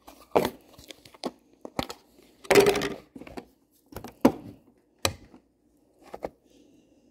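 Crinkling and rustling handling noises: a series of short scrapes and knocks, with a longer, louder rustle about two and a half seconds in.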